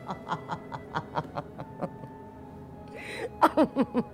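A woman laughing in a quick run of short chuckles, about four a second, then after a short pause and a sharp breath, a louder burst of laughter near the end.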